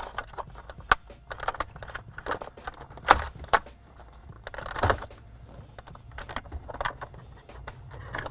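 Plastic clicks, snaps and rattles of wiring-harness connectors being unplugged from the back of a Ford F-150's climate control bezel, coming as irregular sharp clicks with a longer rustle of handling about five seconds in.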